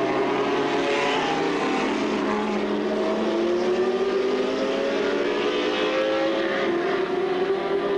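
A pack of Group C prototype race cars running close together behind the pace car, several engine notes overlapping and slowly rising in pitch as the field rolls toward the start.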